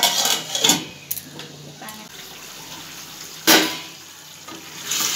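Chicken and potato curry bubbling in an open kadai, with the knock of a lid being lifted off at the start and a second, louder knock about three and a half seconds in.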